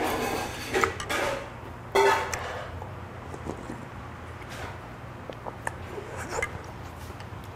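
A man eating spicy fish-stew broth: a few louder slurps in the first couple of seconds, then quieter sipping and light clicks of a metal spoon against a small bowl.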